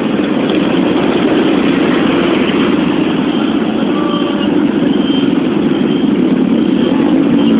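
Steady ride noise from a moving motorcycle: the engine running and wind rushing, holding an even level with no clear changes.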